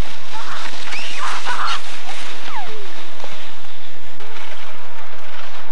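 Steady rushing noise, typical of wind buffeting the microphone on a snowy slope, with a few short, high, gliding cries from voices at the sledding hill.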